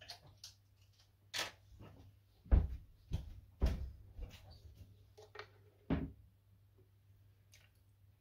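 Handling sounds as a fragrance bottle and pipette are fetched: a series of about a dozen knocks and clicks of objects picked up and set down on a table, the heaviest thumps clustered between about two and a half and four seconds in, with one more near six seconds.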